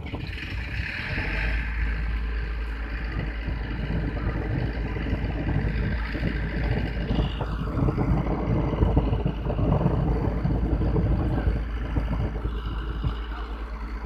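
Diesel engine of a pick-and-carry mobile crane running steadily, with a low rumble underneath.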